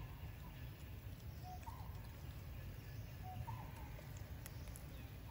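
A bird repeats a short call about every one and a half to two seconds, each a brief note that rises at the end, over a steady low rumble. Two faint sharp clicks come near the end.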